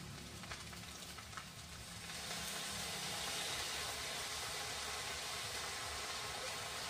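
Maggi noodles and fried vegetables sizzling in a kadai over a gas flame. The sizzle grows louder about two seconds in and then holds steady.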